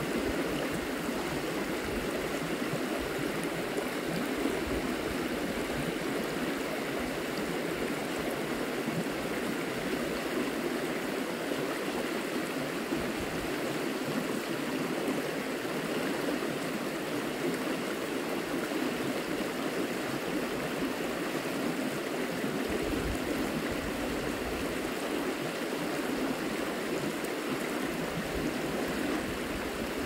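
A river flowing: a steady, unbroken rush of water.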